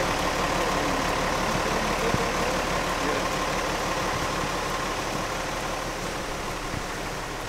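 A vehicle engine idling steadily, with a hiss of heavy rain.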